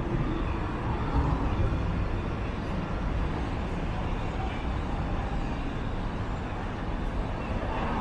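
Steady city background ambience: a constant low rumble with faint voices mixed in.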